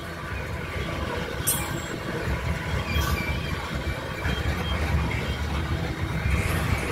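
Loaded crude-oil tank cars of a long freight train rolling past with a steady low rumble of wheels on rail. A faint high wheel squeal comes and goes, and two brief high hisses come about a second and a half and three seconds in.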